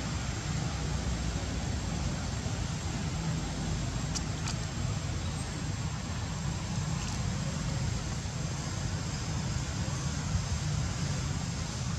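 Steady outdoor background noise with a low rumble and a hiss, and two faint clicks about four seconds in.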